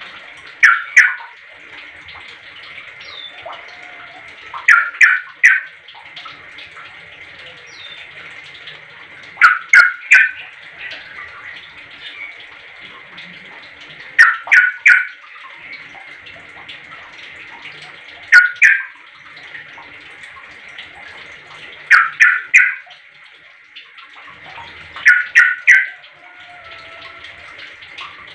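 Yellow-vented bulbul (trucuk) calling in short phrases of two to four quick notes, repeated about every four seconds over a steady background hiss.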